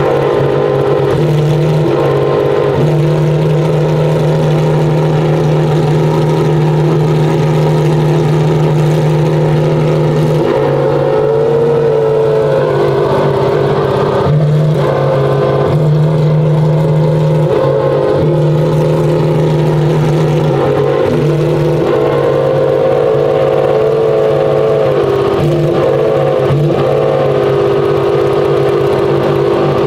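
Pagani Huayra R's naturally aspirated V12 idling steadily, with a few small, brief changes in pitch.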